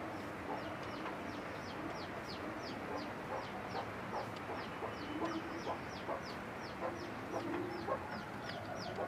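Animal calls: a steady run of short, high, falling chirps about three a second, with a few lower clucking calls and scattered faint clicks beneath.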